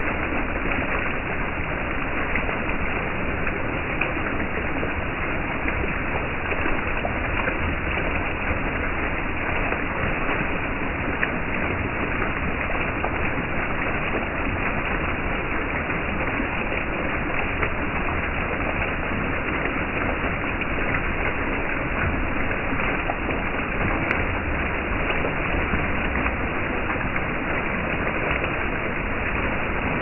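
Water jets of an earthenware-jar (onggi) fountain splashing down onto the jar lids and wet paving: a steady, even splashing of falling water.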